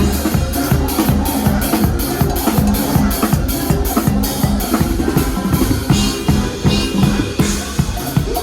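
A band playing during a sound check, a drum kit's kick and snare driving a fast steady beat over bass and other instruments.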